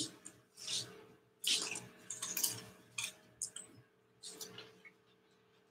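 A sharp click, then a handful of short, soft scratchy strokes and light taps of painting tools at work on a canvas.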